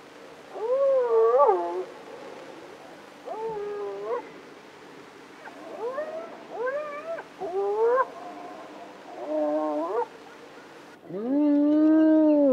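Spotted hyena calling: a series of short, pitched calls that each rise and fall, spaced a second or two apart. Near the end comes one longer, lower call that rises and holds.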